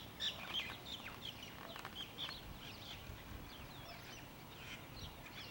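Birds chirping faintly: many short, high calls scattered through, some sliding in pitch.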